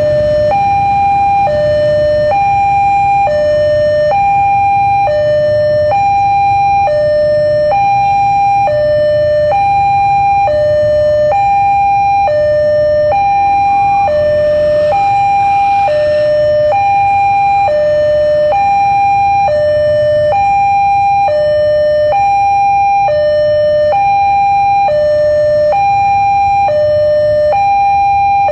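Railway level-crossing warning alarm sounding as a train approaches: an electronic two-tone signal alternating evenly between a higher and a lower tone, each held just under a second, repeating steadily. A low steady rumble runs underneath.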